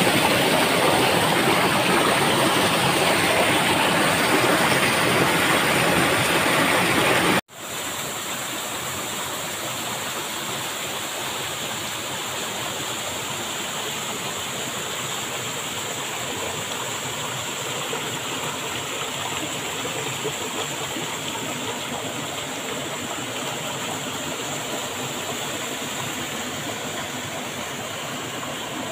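Waterfall rushing steadily. About seven seconds in it cuts abruptly to a quieter, steady stream flowing over rocks.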